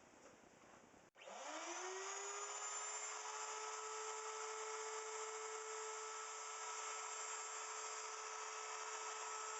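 Wood router motor on a router milling machine switched on about a second in, spinning up with a quickly rising whine and then running at a steady high pitch.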